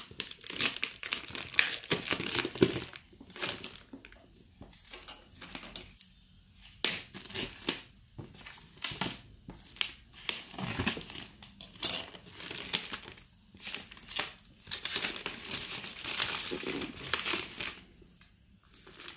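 Clear plastic shrink-wrap crinkling and tearing in irregular bursts as it is picked at, cut with scissors and pulled off a cardboard box set, with a few short pauses between bursts.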